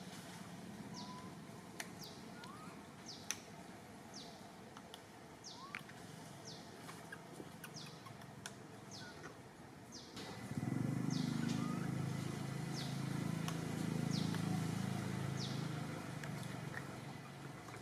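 A bird calling over and over with short, high, falling chirps about once a second. A low rumble swells about ten seconds in and fades near the end.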